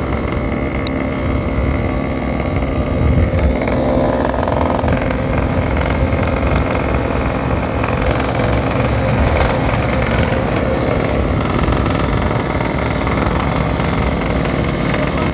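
Yamaha RX-King's two-stroke single-cylinder engine running steadily while under way, with a brief swell about three seconds in.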